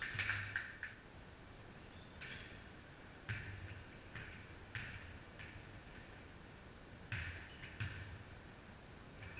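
Basketball bouncing on an indoor gym floor with sneakers squeaking, heard as a handful of short, irregular knocks and squeaks in an echoing hall.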